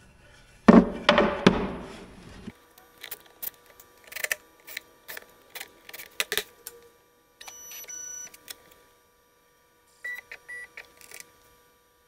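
A wooden board set down with a loud clatter about a second in, followed by a string of knocks and clicks as it is handled, then short runs of a cordless impact driver screwing it down to the CNC router bed, the last few only brief blips.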